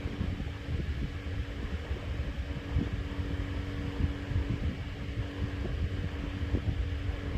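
A steady low mechanical hum, fan-like, with a faint steady tone and a few scattered light clicks.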